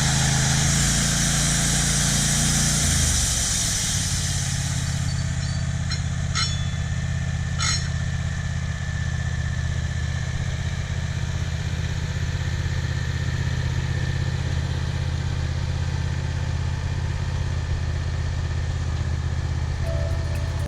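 Gasoline engine of a WoodMizer LT15 band sawmill running steadily, with a high hiss that fades out about four seconds in as the engine drops to a lower speed, and two short clicks a little later.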